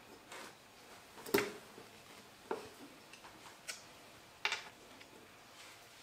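Scattered light clicks and knocks of small hard objects being handled. The loudest comes a little over a second in, and the others fall about two and a half and four and a half seconds in.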